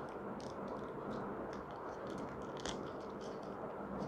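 Faint rustling and crinkling of white protective wrapping being peeled by hand off a small accessory, a short sharper crackle about two-thirds of the way through.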